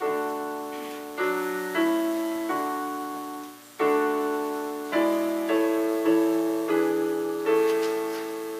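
Piano playing a slow run of chords, each struck and then left to fade, changing about every half second to a second with no singing.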